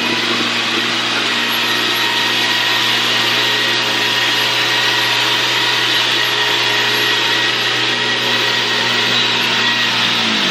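Cordless stick vacuum running on carpet: a steady motor hum with a high whine over the rush of air, winding down and stopping near the end.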